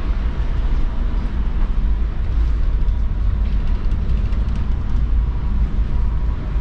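Steady low drone and rumble of a container ship's machinery heard on the bridge, with a few steady low hum tones over a deep, slightly fluctuating rumble.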